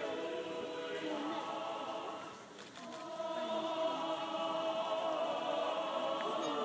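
A choir singing in harmony from the top of a gate tower, heard from the court below. Long held chords are broken by a short pause between phrases about two and a half seconds in.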